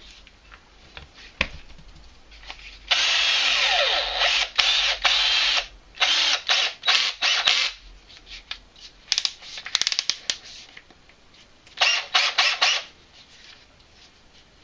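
Black & Decker 20V cordless drill/driver motor running, first in one steady spin of about three seconds and then in several short trigger bursts. A quick run of clicks comes in between the bursts.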